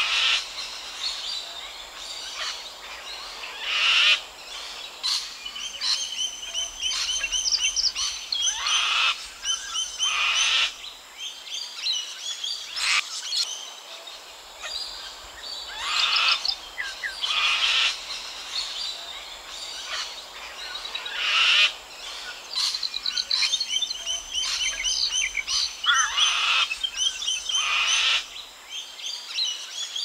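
Sulphur-crested cockatoos giving harsh screeches every few seconds. Between the screeches, smaller birds chirp in rapid high trills.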